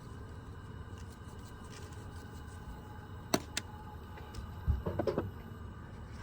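Seasoning shaker being opened and shaken over burger patties: two sharp clicks, then a short burst of rattling shakes, over a steady low rumble.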